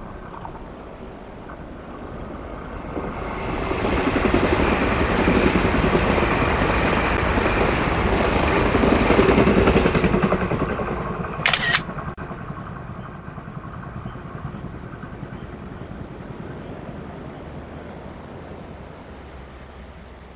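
A train passing on the line below: its rumble swells a few seconds in, runs loud for about seven seconds, then slowly dies away. A single sharp click sounds about halfway through.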